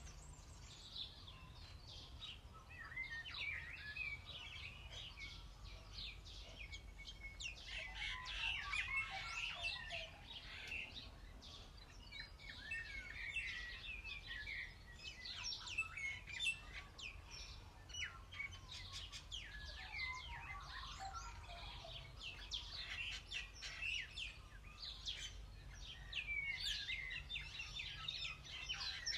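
Many wild birds chirping and singing at once: a dense chorus of short, high calls and trills that goes on throughout, over a faint low rumble.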